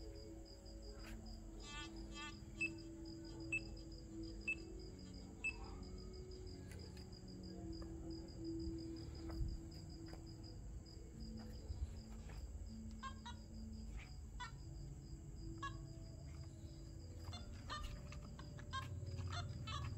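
Crickets chirping in a fast, steady pulse, with a few short sharp clicks now and then.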